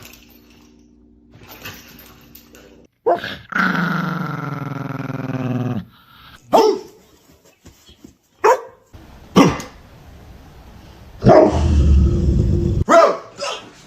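A dog vocalizing: several short sharp barks between two long drawn-out calls, the first of which falls in pitch over about two seconds.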